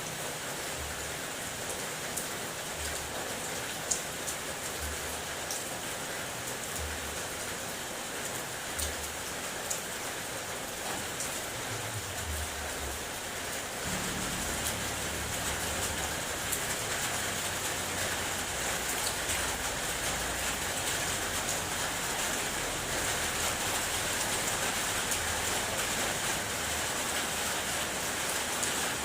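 Rain falling on a car's body: a steady hiss with scattered sharp taps of single drops. It grows slightly louder about halfway through.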